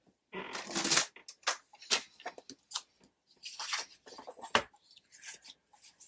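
Sheets of paper rustling and sliding as they are handled and lined up in a paper trimmer, in irregular bursts with a few light clicks and knocks. The biggest rustle comes about half a second in.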